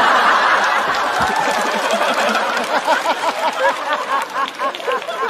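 Audience laughing and clapping after a punchline: a dense burst of laughter and applause that thins into separate voices laughing.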